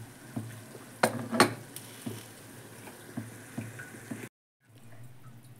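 Aluminium pressure cooker lid being put on and closed: two sharp metal clinks about a second in, followed by a few lighter clicks. The sound cuts out briefly near the end.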